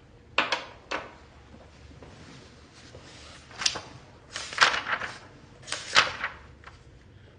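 Several sharp knocks and clatters of objects being handled: two single hits in the first second, then busier clusters a little past the middle and near the end.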